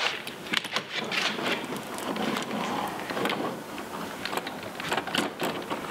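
Hand seam roller run along flashing tape to press it onto a window's nailing flange and the house wrap: a rough rolling rasp broken by many small crackles and clicks.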